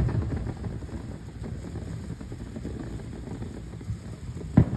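Consumer ground firework fountain spraying sparks with a steady rushing noise, and one sharp pop near the end.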